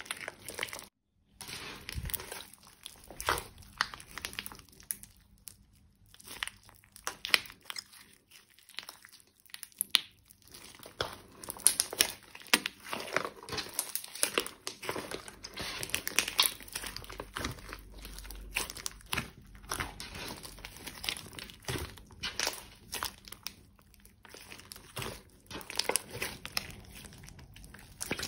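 Thick pink slime with crumbled eyeshadow mixed in, squeezed, stretched and folded by hand, giving dense, irregular sticky crackles and pops. The sound drops out for a moment about a second in.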